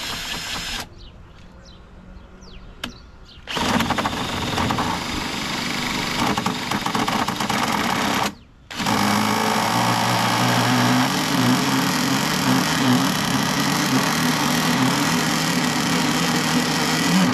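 Small nitro glow engine of a Pro Boat Blackjack 26 RC boat starting and running on its first fire-up. It cuts out briefly about eight seconds in, catches again and runs at idle, then dies suddenly near the end on its first pull of throttle.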